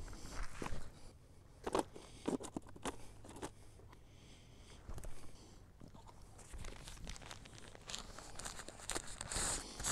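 Fishing gear being handled at a tackle bag, with feet shifting on loose rock: scattered crunches, knocks and rustles, busiest in the first few seconds and again near the end.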